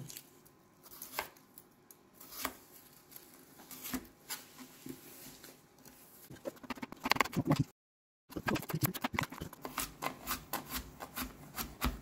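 Chef's knife cutting garlic cloves on a plastic cutting board: scattered single cuts at first, then from about six seconds in a fast, steady run of knife strikes on the board, about five a second, broken by a brief gap near eight seconds.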